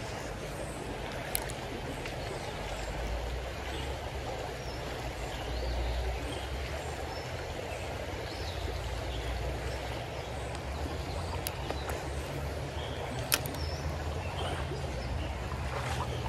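Shallow creek water running steadily over riffles, with a low rumble underneath. A few sharp clicks, the loudest about thirteen seconds in.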